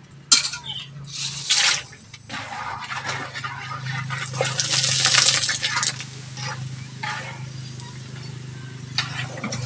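Macaroni deep-frying in hot oil in a wok, the oil sizzling and bubbling as a wire strainer stirs through it and scoops the pieces out. The sizzle is loudest from about two to six seconds in, with a few sharp clicks near the start.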